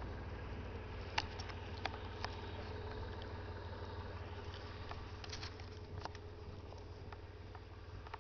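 A 4x4's engine idling with a steady low rumble that slowly fades, with a few sharp clicks scattered over it.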